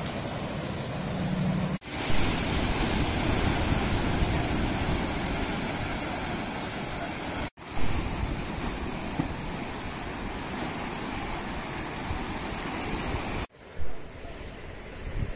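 Sea surf washing and breaking over a rocky shore, a dense steady rush with wind buffeting the microphone. The sound cuts out for an instant three times, about two, seven and a half and thirteen and a half seconds in, at edits between clips. A low steady hum lies under it for the first couple of seconds.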